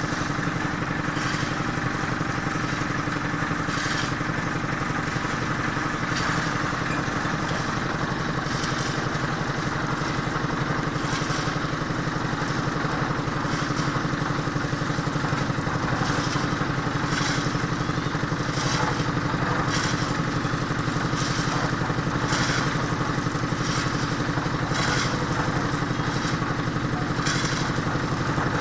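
Construction machinery engine running steadily, with irregular clanks or scrapes every second or two.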